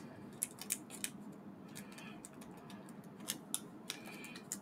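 Small metal screws from a model kit clicking faintly and irregularly as they are tipped out and spread by hand.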